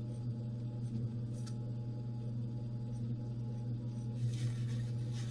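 Diamond-wheel grinder's electric motor running with a steady low hum. About four seconds in, a brief rubbing sound.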